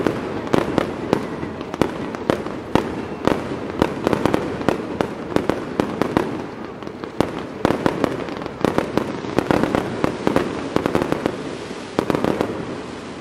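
Aerial fireworks display: a rapid, continuous run of shell bursts and reports, several sharp bangs a second over a steady rush of noise.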